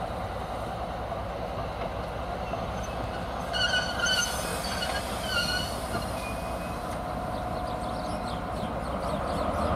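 A slow-moving train of Rheingold passenger coaches behind a diesel locomotive, rolling steadily, with the wheels squealing a few times in the middle. The sound grows louder near the end as the locomotive comes closer.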